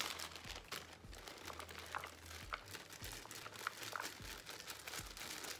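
Clear plastic zip-top bag crinkling and rustling in the hands as chopped jalapeños are picked out of it, a scatter of small irregular crackles with one sharp click at the start.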